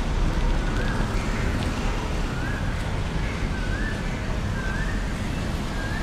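Street ambience: a steady low rumble of road traffic, with a short rising chirp repeating about once a second.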